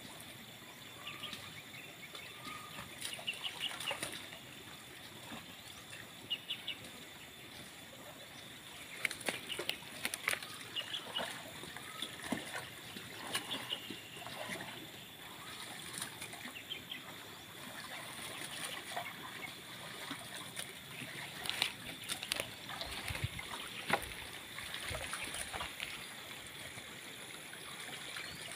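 Irregular splashes and sloshing of shallow muddy water as people grope by hand for fish, with short bird calls in the background.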